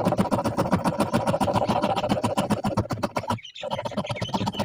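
Rapid, rhythmic scraping of about ten strokes a second over a steady pitched ring. It breaks off briefly about three and a half seconds in, then resumes.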